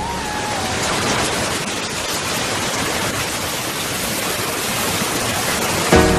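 Steady heavy rain, a dense even hiss. A held note fades out in the first second, and music comes in with a hit near the end.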